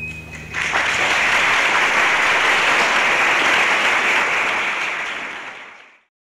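Audience applause breaks out about half a second in as the song's final held note ends. It fades away near the end and then cuts to silence.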